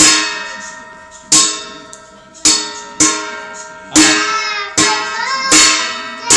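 About six sharp strikes, roughly one a second, each ringing out and dying away slowly.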